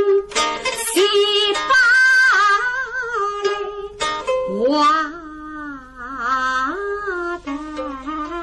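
A woman sings a slow, ornamented Suzhou tanci (pingtan) melody with bending pitch. Plucked pipa and sanxian accompany her, with strummed chords about a third of a second in, at one second and again around four seconds.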